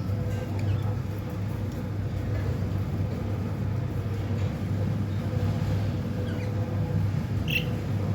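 A steady low hum, with a few brief, faint budgerigar chirps over it and one clearer chirp near the end.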